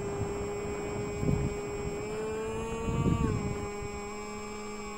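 Electric RC plane's motor and propeller running with a steady whine. Its pitch rises a little about two seconds in, then drops about three seconds in. Two brief low rumbles come near the middle.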